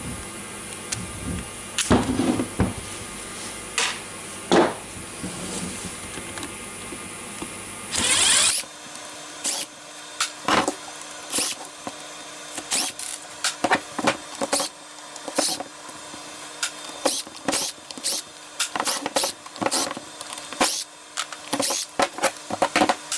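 Irregular clicks and knocks of plastic and metal parts being handled as a cordless drill is taken apart, over a steady faint hum; the sound changes suddenly about eight seconds in and the clicks come thicker after that.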